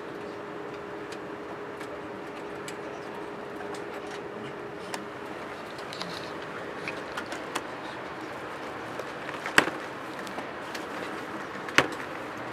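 Steady hiss of an airliner cabin's ventilation, with a faint hum that fades out about halfway through. Small scattered clicks and two sharp knocks near the end come from the camera being handled against the seat.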